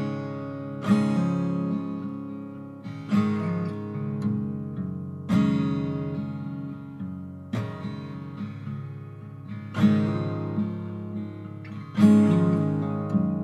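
Slow background music on acoustic guitar: a chord strummed about every two seconds, each left to ring out.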